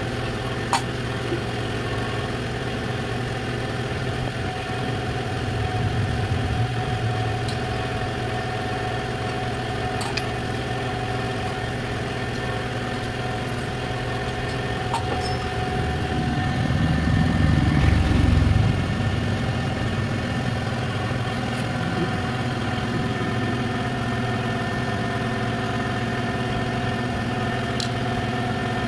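An engine or motor running steadily at one speed, swelling louder in the low range for a couple of seconds about two-thirds of the way through, with a few sharp metallic clicks.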